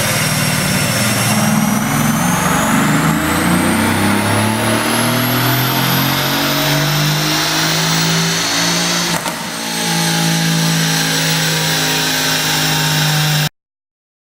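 Mercedes-AMG GT S 4.0-litre twin-turbo V8 under load on a dyno, revs climbing steadily for several seconds. About nine seconds in there is a brief dip with a sharp crack, then the engine holds steady until the sound cuts off abruptly.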